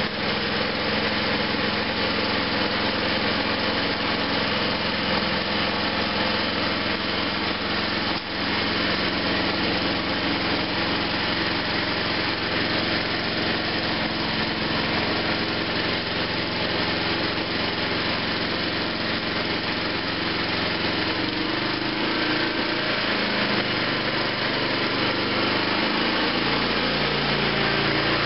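Riding lawn mower's small engine running steadily, its note changing twice in the last third as the mower starts driving.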